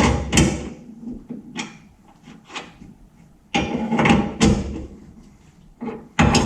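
Metal tools knocking and clanking against the suspension hardware as bolts are tightened, in irregular loud clatters with a heavier cluster a little past halfway and another near the end.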